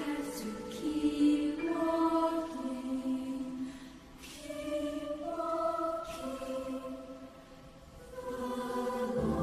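School choir singing held chords in phrases that swell and fade, with a fuller, louder chord entering near the end.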